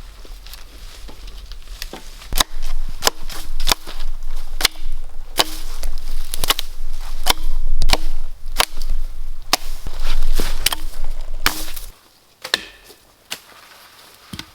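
Repeated sharp blows of a tool striking wood, about one or two a second, some leaving a brief ringing note. Under them runs a low rumble that stops about twelve seconds in, and the blows then thin out to a few.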